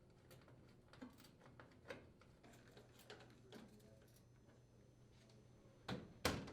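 Faint, scattered clicks and taps of hand work on the gas range's metal manifold panel while its mounting screws are driven, with two louder sharp clicks close together near the end.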